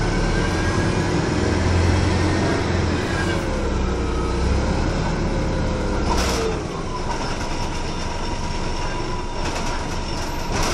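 Riding aboard a 1996 RTS transit bus: the engine's low drone with whines gliding up and down. A sharp clack comes about six seconds in, after which the low drone falls away and a steady whine remains.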